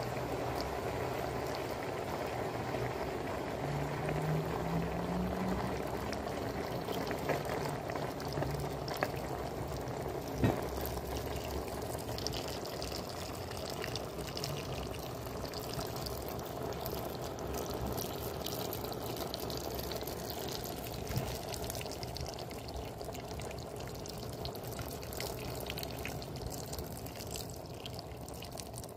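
Pot of hare stew simmering: a steady watery bubbling from the liquid under the meat and vegetables, with a few small ticks and knocks.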